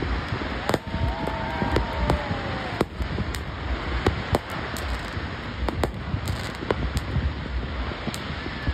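Fireworks display going off continuously: many sharp bangs and crackles over a low rumble. A few whistles glide up and down between about one and two and a half seconds in.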